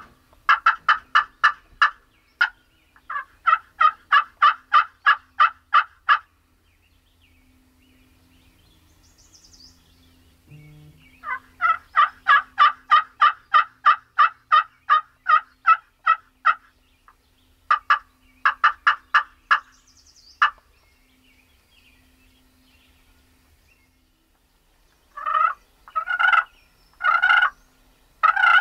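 Wild turkey calling: long, even runs of yelps, about five notes a second, in four series, then a few longer, rougher calls near the end. A small songbird chirps faintly twice.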